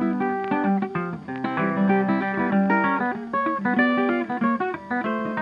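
Background music on guitar: quick runs of plucked notes.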